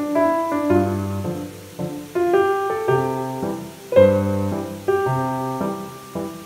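Background music: a bright solo piano piece, notes and chords struck one after another and left to fade.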